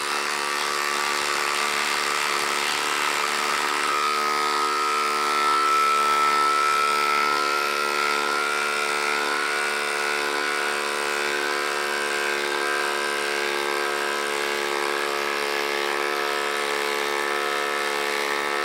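Milwaukee M12 Fuel impact driver hammering steadily under load as it drives a 6-inch lag screw into the end grain of a wood round.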